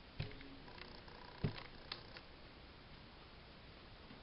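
A few light taps and knocks of craft items being handled on a tabletop, the loudest about one and a half seconds in.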